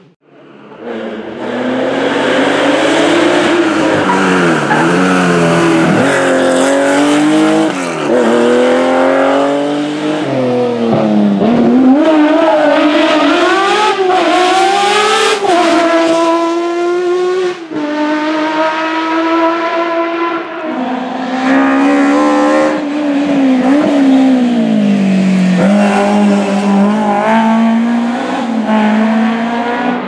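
Historic rally car engines at full throttle on a tarmac stage, the pitch climbing through the revs and dropping at each gear change or lift for corners.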